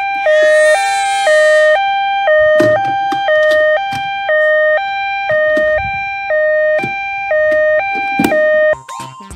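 Electronic two-tone ambulance siren from a toy, alternating high and low about once a second in a steady nee-naw pattern, with faint clicks and rattles underneath; it cuts off abruptly near the end.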